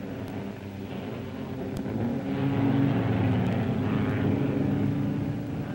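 Several sprint car engines running at racing speed as the pack comes by, growing louder about two seconds in.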